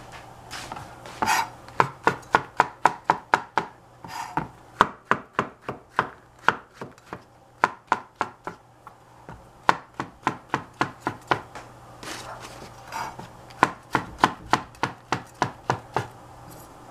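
Chef's knife slicing shiitake mushrooms on a plastic cutting board: quick runs of sharp knocks on the board, about four a second, with short pauses between runs.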